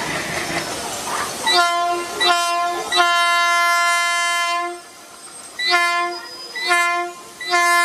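Indian Railways locomotive horn sounding two short blasts and one long, then two short and one long again, over the rushing noise of the train running.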